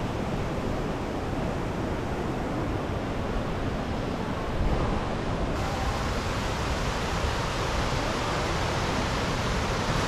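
Fast river water rushing through the rock channels of Fukiware Falls: a steady, even rush of water noise, a little louder and brighter from about five seconds in.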